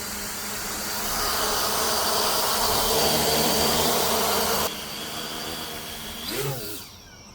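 Brushless motors and propellers of a 10-inch FPV quadcopter whirring with a steady buzzing hum that cuts off abruptly partway through, followed by a quieter hum and one brief whine that rises and falls as a motor is throttled up and back down.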